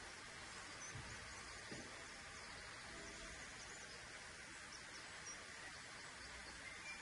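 Faint steady background hiss with a few faint, short, high chirps scattered through it.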